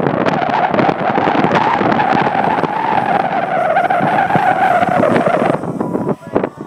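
Tarot 450 Pro electric RC helicopter's motor and rotor whining in flight, the pitch rising a little and then sagging, with wind buffeting the microphone. The whine fades out about five and a half seconds in, leaving gusty wind noise.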